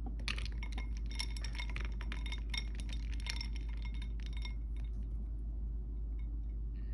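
Small clinks and taps of a plastic L.O.L. Surprise mini doll and ice chunks knocking against a clear bowl, quick and irregular for the first four or so seconds, then dying away. A steady low hum runs underneath.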